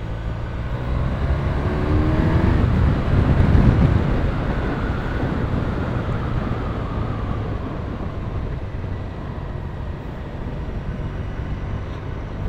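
BMW R1200RT motorcycle engine accelerating, its note rising over the first few seconds, then settling into a steady cruise with dense wind rush.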